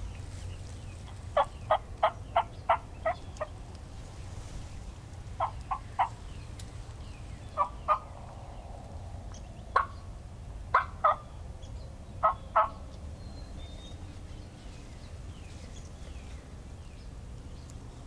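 Turkey yelping: a run of about seven sharp yelps at about three a second, then shorter groups of one to three notes spread over the next several seconds.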